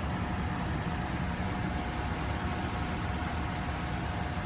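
12,000 BTU portable air conditioner running with its compressor on: a steady rush of fan air over a low hum, with a faint steady whine.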